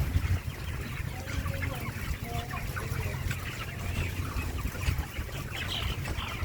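A large flock of 30-day-old broiler chickens chirping and clucking all at once, many small calls overlapping, over a steady low hum. The birds are said to have cekres, a respiratory snicking and rattling.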